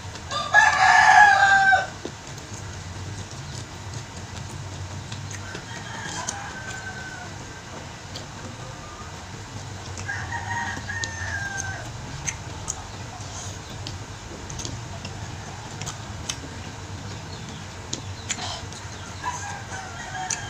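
A rooster crowing loudly once, a long call of about a second and a half, then fainter crows three more times.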